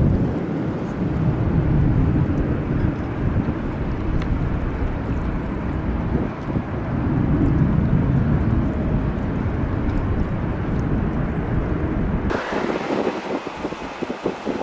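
Wind buffeting the microphone: a loud, gusty low rumble. About twelve seconds in it cuts abruptly to a thinner, hissier sound, the onset of jet airliner engine noise.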